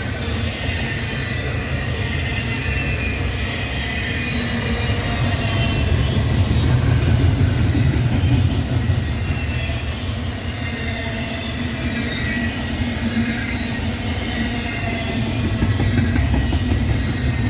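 BNSF double-stack container freight train rolling past, a steady heavy rumble of wheels and cars with faint wavering high squeals above it, swelling louder about halfway through and again near the end.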